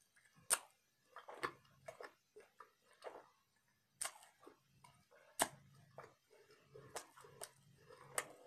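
A person chewing a mouthful of taco with a hard-fried corn shell: a run of sharp crunches and mouth clicks at irregular intervals, about half a dozen standing out, between softer chewing.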